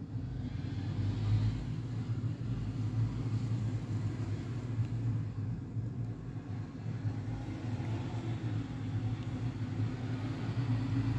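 Steady low rumble of background noise, a continuous hum with no distinct events.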